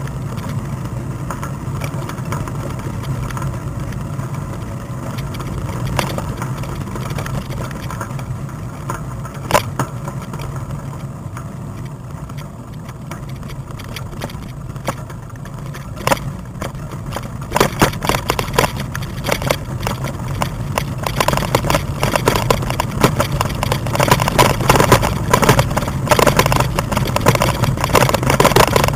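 Steady rumble of a bike ride heard through a bike-mounted camera. From about 17 seconds in it turns into a dense, louder rattle of clicks and knocks from the bumpy path.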